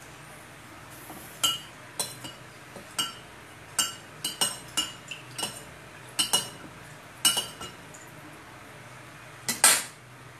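Metal kitchen utensils clinking: a string of sharp, ringing clinks at uneven intervals, with a louder double clink near the end.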